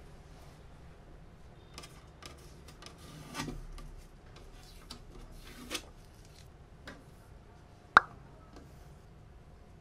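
White laminated particleboard shelf panels being handled: short scrapes and knocks of board against board as a shelf panel is slid into the unit. There is one sharp, loud click about eight seconds in.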